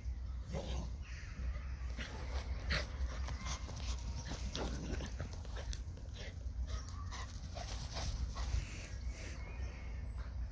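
Small dog giving short whines while moving about in grass, with scattered rustles and clicks.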